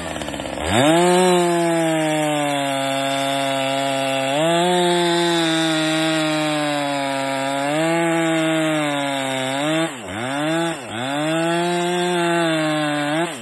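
Stock Husqvarna 455 Rancher two-stroke chainsaw at full throttle cutting through a log, the engine note sagging and recovering slightly under load. Near the end the revs dip sharply twice, then the saw drops back to idle.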